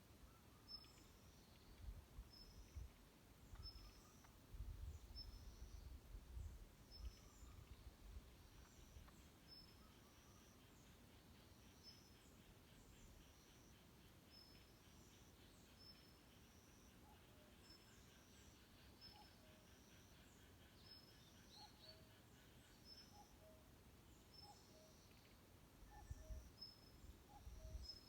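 Faint wild birdsong: one bird repeats a short, high note about once a second, a quieter fast trill joins through the middle, and lower two-note calls come in during the second half. Low rumbling, like wind on the microphone, comes in bursts near the start and again near the end.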